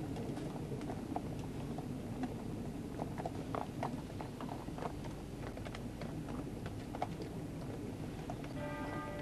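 Horses' hooves clopping irregularly on the road as the gun carriage team and mounted police walk past, over a steady low rumble. A ringing tone with several pitches starts near the end.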